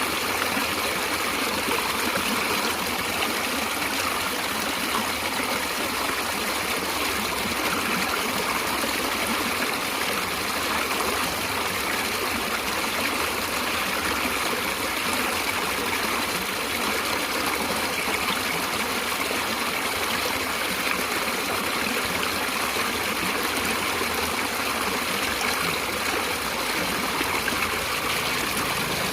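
A stream of flowing water, running steadily with a constant rushing hiss.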